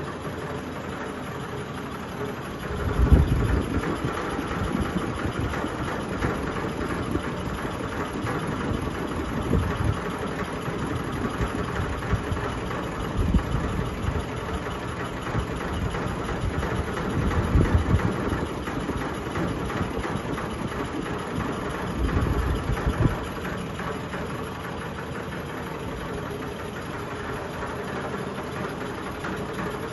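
Sony ceiling fan (2022 model) running at full speed, wobbling heavily, with a loud steady rattling noise. Irregular low knocks from the vibrating fan come every few seconds, the strongest about three seconds in.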